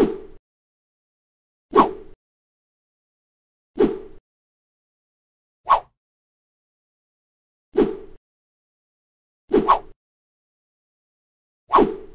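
A short editing sound effect played seven times, about once every two seconds, each one brief and alike, with dead silence between.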